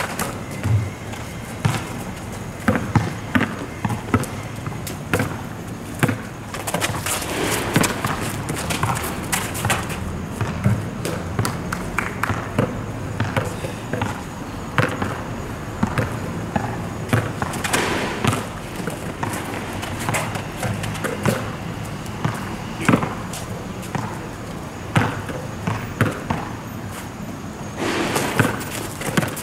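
A basketball bouncing on an outdoor asphalt court during a pickup game: irregular thuds of dribbles and passes, with players' voices now and then.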